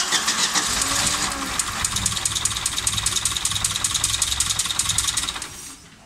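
Opel Kadett 200is fuel-injected OHC four-cylinder engine starting for the first time in two years: it turns over, catches within the first second and runs with a fast, even beat, then cuts out about five and a half seconds in.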